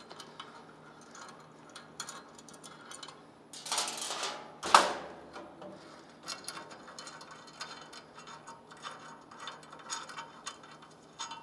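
Socket ratchet clicking in short runs while mounting nuts and bolts are removed, with a louder knock just under five seconds in.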